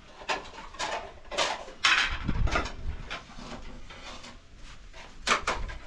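Plates and dishes clinking and clattering as they are handled and stacked: a run of separate knocks, the loudest about two seconds in and another near the end.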